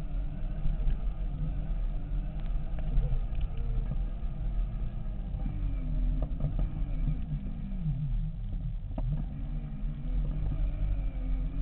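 Segway x2's drive whining, its pitch rising and falling as the speed changes, over a steady low rumble from the tyres rolling on a rough gravel track. A few sharp knocks come from bumps in the track, about six and nine seconds in.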